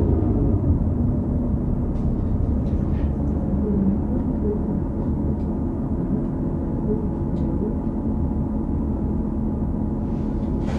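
Cummins L9 diesel engine of a 2018 New Flyer XD40 transit bus running at a steady low rumble, heard from inside the bus, with a few faint light rattles. A falling whine dies away in the first moment.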